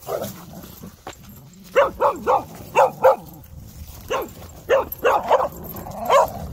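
Dog barking during rough play among dogs: about a dozen short, sharp barks in quick clusters, most of them in the middle and later part.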